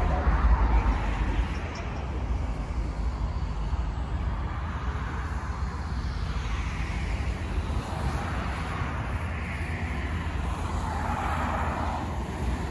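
Road traffic: cars passing, swelling and fading a few times over a steady low rumble.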